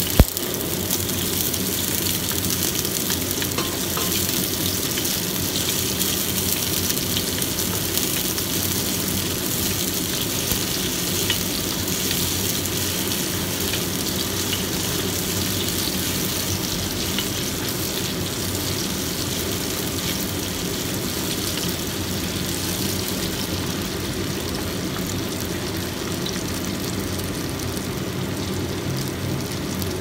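Chopped shallots, garlic and bird's-eye chilies sizzling steadily in hot oil in a wok, stirred with a wooden spatula. A single sharp knock comes just after the start.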